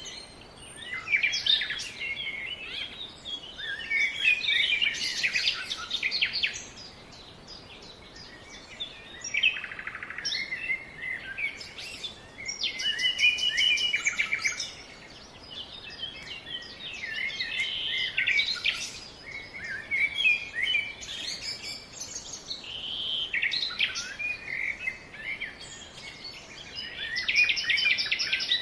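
Several songbirds chirping and singing at once, with quick overlapping calls and trills in bouts and short lulls between them.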